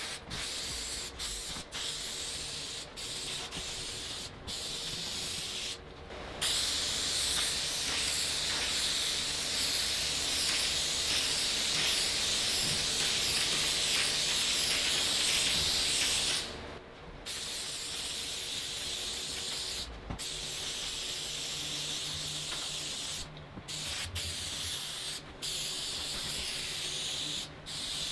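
Aerosol spray adhesive hissing from a can as it coats the back of a tufted rug, ready for the backing cloth to be laid on. It comes first in short bursts, then as one unbroken spray of about ten seconds, then in short bursts again.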